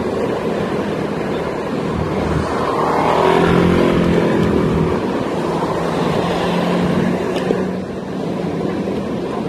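Steady wind and tyre noise from riding a small electric kick scooter on asphalt. A motor scooter's engine passes close by, loudest about three to four seconds in, then fades.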